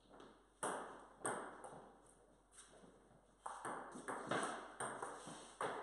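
Table tennis ball clicking off paddles and the table during a rally, a few spaced hits at first and then a fast run of hits from about halfway in, echoing off the bare garage walls.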